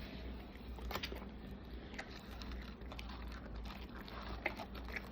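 A person chewing and biting food close to the microphone, with scattered short mouth clicks and smacks, over a steady low hum.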